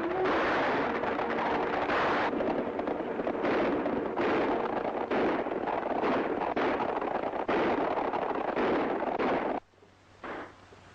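Western film action soundtrack: a dense, continuous din of gunfire that cuts off suddenly about a second before the end.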